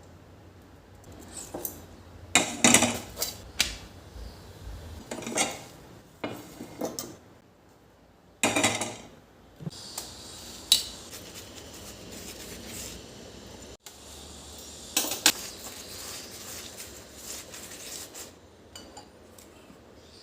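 Kitchen utensils and dishes clinking and clattering: scattered sharp knocks of metal cookware and cutlery, a few of them loud, over a quiet kitchen background.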